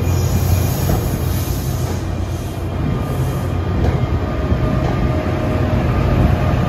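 Commuter train sounds: a steady low rumble, joined about four seconds in by a faint high whine.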